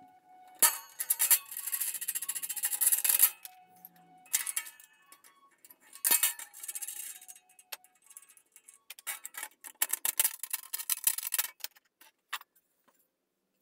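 Runs of rapid metallic clicking and tapping, four bursts of a second or more each, from hand tools working the bolted form tool and sheet-metal panel clamped in a bench vice.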